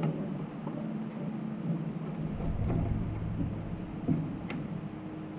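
Faint metallic clicks of bolts and washers being handled and set in place, over a steady low hum, with a low rumble swelling briefly about two and a half seconds in.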